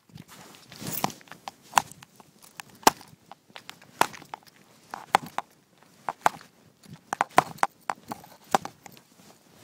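Handling noise on a phone's microphone: irregular sharp clicks and knocks, bunched closer together late on.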